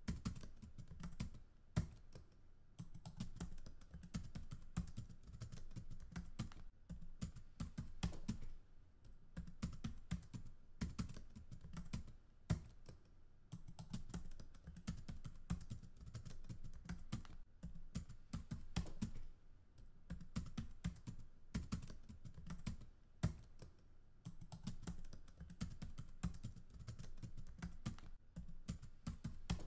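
Computer keyboard typing: quick runs of keystrokes broken by a few brief pauses.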